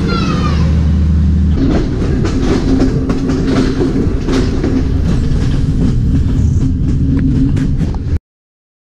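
Train with a steady low engine rumble, then, about a second and a half in, running along the line with the wheels clattering over rail joints and a steady hum. The sound cuts off suddenly near the end.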